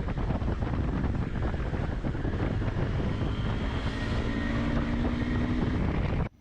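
Heavy wind buffeting on the microphone of a moving motorcycle, with the KTM 390 Adventure's single-cylinder engine running underneath; it cuts off suddenly near the end.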